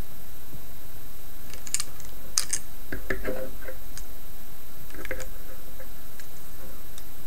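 Small plastic clicks and rattles from a Transformers Energon Air Raid figure's parts being handled and repositioned, coming in a scattered run from about a second and a half in to about five seconds in, over a steady background hiss.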